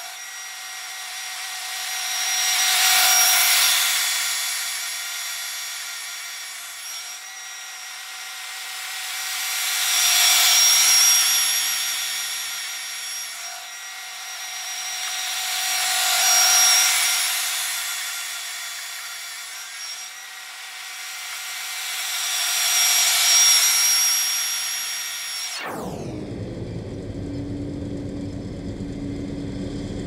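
A John Deere 9500 combine harvesting soybeans, heard sped up: a high, thin machine whine with no low end that swells and fades four times as the combine makes passes by. Near the end the whole sound sweeps down in pitch as it returns to normal speed, leaving a steady, lower engine hum.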